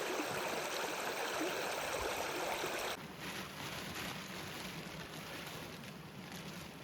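Forest stream flowing, a steady rush of water. About three seconds in it drops suddenly to a quieter flow.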